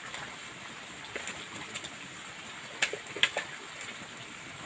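Outdoor pondside ambience: a steady hiss with a thin high tone, broken by a few short sharp ticks, the loudest two about three seconds in.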